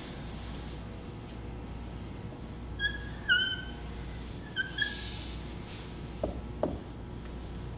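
Dry-erase marker squeaking on a whiteboard while Arabic letters are written: a few short, high squeaks about three seconds in and again near five seconds, then two light taps of the marker on the board.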